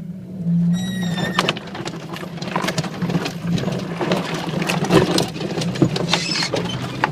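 A car's bodywork scraping and squealing along a fence in a tight lane: a high squeal about a second in, then continuous scratching and snapping over the engine's steady low hum.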